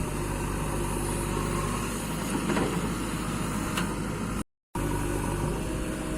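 An engine of heavy machinery running steadily at idle, a low even hum, with the sound cutting out completely for a moment about four and a half seconds in.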